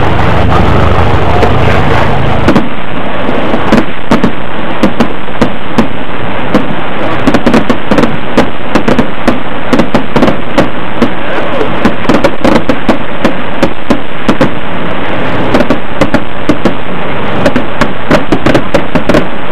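Firecrackers going off from the firework rig hanging beneath a large paper hot-air balloon ('balão fogueteiro'): a long run of rapid, irregular popping and crackling over steady background noise.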